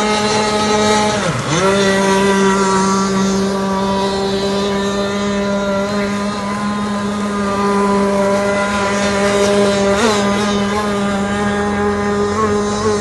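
Zenoah two-stroke engine with a Trevor Simpson reed-valve bottom end, running at high revs in an RC gas boat speeding across the water. It makes a steady high buzz. Its pitch dips sharply about a second and a half in and then recovers.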